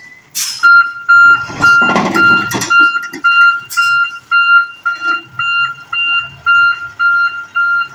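Loaded dump truck's reversing alarm beeping, a steady series of short identical high beeps at about two a second, starting just under a second in. A louder rush of truck noise passes under the beeps about two seconds in.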